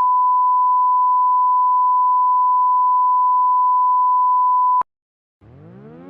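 Emergency broadcast alert tone: a single steady tone near 1 kHz held for about five seconds, ending abruptly with a click. After a short silence, a siren starts winding up near the end, faint and rising in pitch.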